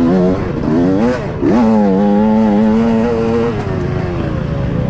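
Dirt bike engine revving up and down under throttle, climbing sharply about one and a half seconds in, held high for about two seconds, then easing off.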